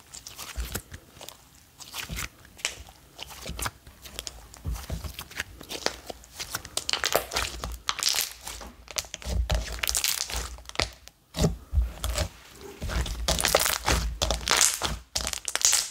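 Thick, glossy ultra-thick slime being stretched, folded and squeezed by hand, giving irregular crackling pops and snaps as trapped air bursts out of it. The pops come in denser runs about halfway through and again near the end.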